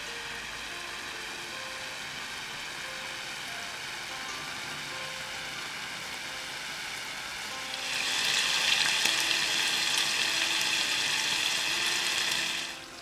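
Thinly sliced bulgogi beef sizzling in oil in a cast iron skillet, a steady crackle. The sizzle grows much louder about eight seconds in and falls back just before the end.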